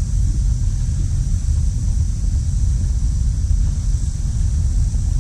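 Steady low wind rumble buffeting the camera's microphone just above the water, with a faint steady high-pitched hiss above it.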